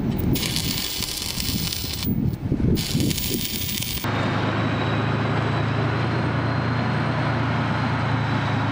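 Electric arc welding crackling and hissing in two stretches, then after a cut about four seconds in, a tank engine running with a steady deep drone as the tank drives over dirt.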